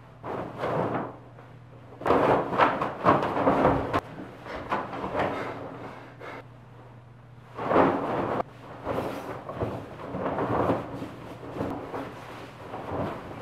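A cotton bed sheet being shaken, flapped and bunched by hand: repeated swishing, rustling bursts of cloth, with pauses between them.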